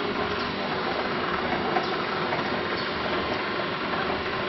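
Aluminium alloy rod rolling and wire drawing machine running, a steady dense mechanical noise with a steady hum beneath, as drawn wire winds onto the take-up spool.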